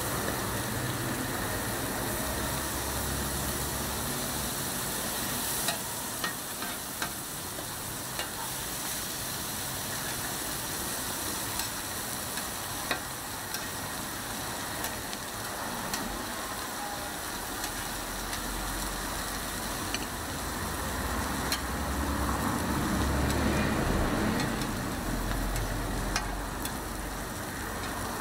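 Bread slices and cabbage-and-egg patties sizzling in butter on a flat griddle, with scattered sharp clicks of metal utensils against the griddle. A low rumble swells in the background past the middle.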